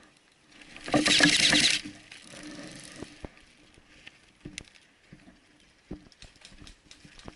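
Rustling and crackling of brush and dry twigs as someone pushes through dense vegetation. There is a loud burst of rustling about a second in, followed by scattered snaps and crackles.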